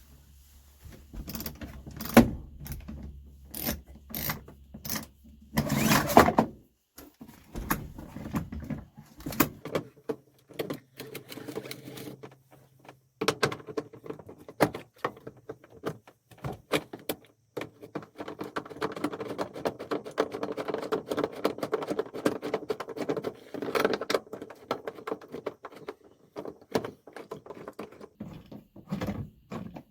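Clicks, knocks and rattles of tools and loose interior parts being handled, with a steady hum running through the second half.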